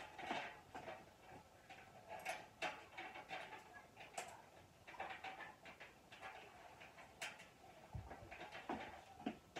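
Faint scattered clicks and rustles of small screws and metal smoker parts being handled during assembly, with a soft low thump about eight seconds in.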